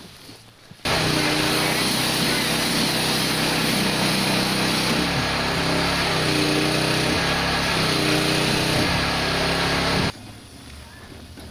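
A small engine running steadily, with a slight wavering in pitch in the middle; it cuts in abruptly just under a second in and cuts off abruptly about ten seconds in.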